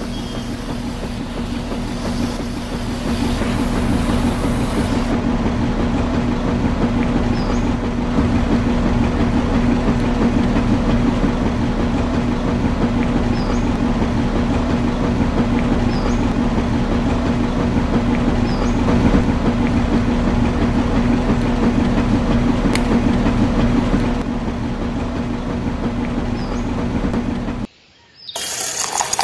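Motor-driven miniature concrete mixer running steadily, its gear-driven drum rattling as the gravel and cement mix churns inside; it stops suddenly near the end, followed by a short separate noise.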